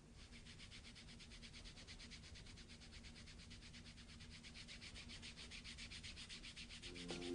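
Faint, quick back-and-forth rubbing of a hand over kinesiology tape on skin, to activate the tape's adhesive. Music begins at the very end.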